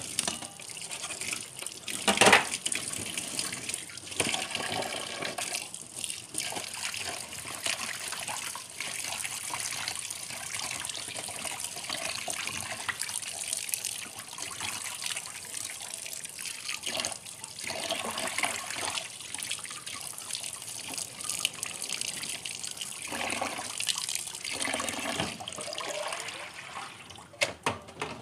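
Tap water running into a stainless steel sink and bowl, splashing as squid pieces are washed by hand. There is a loud clatter about two seconds in and a few lighter knocks later.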